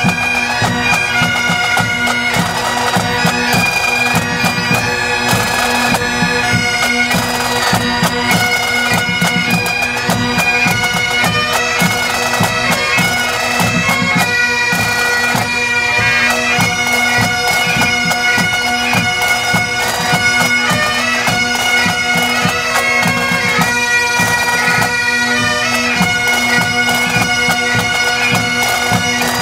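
Several Great Highland bagpipes playing a tune together over their steady drones.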